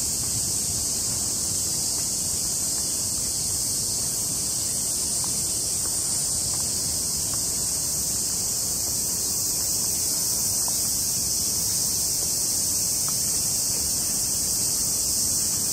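A dense, unbroken chorus of insects: a steady high-pitched shrill that holds level and pitch without a break, over a low background rumble.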